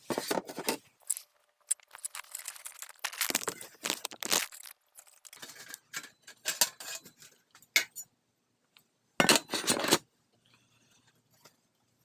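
Irregular clinks, scrapes and rattles of small metal parts in short bunches, as screws are handled and the Lexus ES300 ECU's metal case is taken apart.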